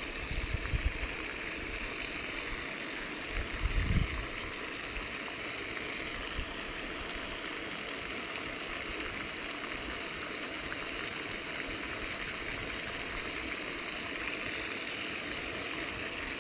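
Steady hiss of splashing water from the pond's spraying fountain, with brief low bumps near the start and about four seconds in.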